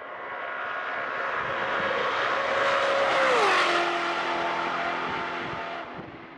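A car engine passing by: it swells to its loudest about three seconds in, drops in pitch as it goes past, then fades away.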